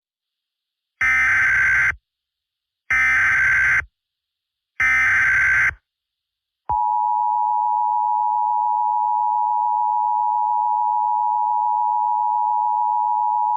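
Emergency Alert System signal: three harsh data bursts of about a second each (the SAME header), then about two seconds in a single long, steady attention tone begins and holds unbroken, announcing the voice alert that follows.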